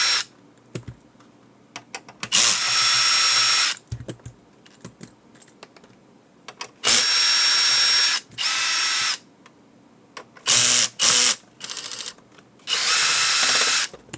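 Electric screwdriver whining in about six short runs of up to a second and a half each, with pauses between, backing out the small screws of a camera housing.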